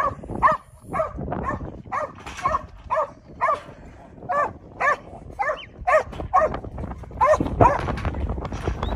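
A black and tan working yard dog barking steadily, about two short barks a second, as it forces a small mob of sheep up against a pen fence.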